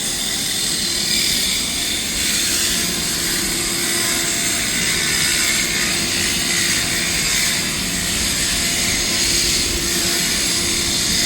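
Husqvarna Soff-Cut 150 early-entry concrete saw's small engine running steadily, with a constant engine hum under a wide hiss of noise.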